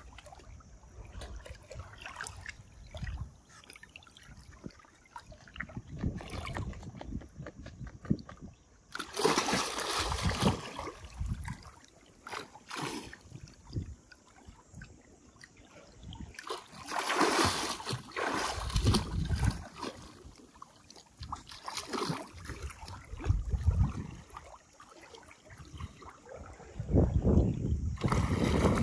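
Water sloshing and splashing in irregular surges a few seconds apart.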